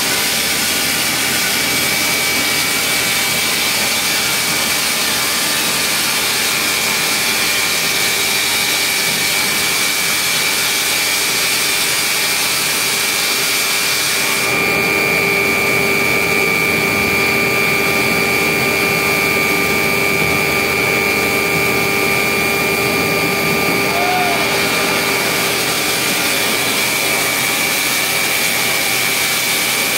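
Shotcrete being sprayed by a robotic spray arm: a steady, loud rushing hiss of concrete and compressed air from the nozzle, with a constant high whine running through it. The sound shifts in tone about halfway through and shifts back later.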